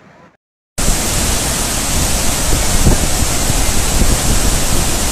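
A swollen river in spate, its fast brown floodwater rushing with a loud, steady noise. It starts abruptly a little under a second in, after a brief silence.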